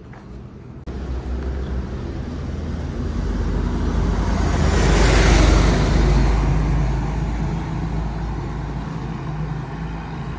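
A box delivery truck passing close by. Its engine hum and rushing tyre noise build to a peak about five seconds in, then fade as it pulls away up the road.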